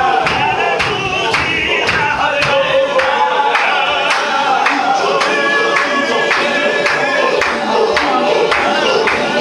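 Chechen Sufi zikr: a large group of men chanting in unison over a sharp, steady beat of about two and a half strikes a second.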